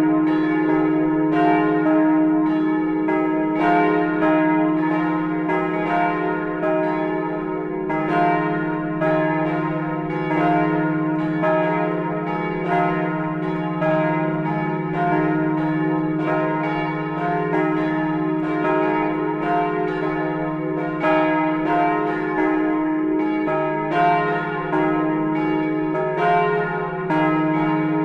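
Church bells ringing a partial peal, with only some of the bells in the tower sounding. Their strikes overlap at roughly one a second over a continuous low hum.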